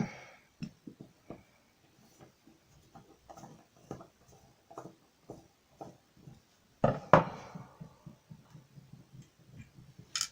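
A lock being handled and closed with its key: scattered small metal clicks and taps, with a pair of loud sharp clacks about seven seconds in.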